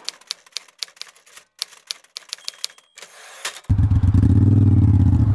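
Typewriter key clacks, a quick irregular run of sharp clicks, as an on-screen caption is typed out. About three and a half seconds in it cuts off and a motorcycle engine, the Triumph Speedmaster's 865cc parallel twin, is heard idling steadily.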